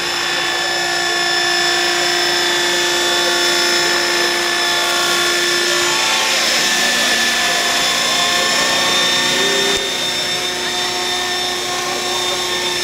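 Replica Heli Baby radio-controlled model helicopter in flight: a steady whine of its motor and rotors, made up of several held tones. The pitch shifts slightly around the middle, and the level drops a little near the end.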